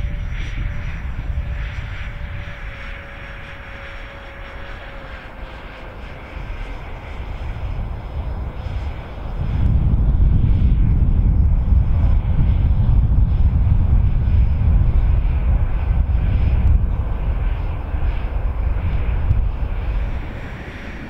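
Twin 50 mm electric ducted fans of a radio-controlled model Boeing 747 whining faintly as it flies high overhead. About halfway through, a loud low rumble rises over the whine and eases off near the end.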